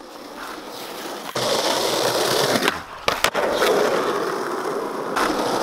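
Skateboard wheels rolling on smooth concrete, getting louder as the board picks up speed. Near the middle the rolling briefly drops out and comes back with sharp clacks as the board lands a kickflip, then rolls on.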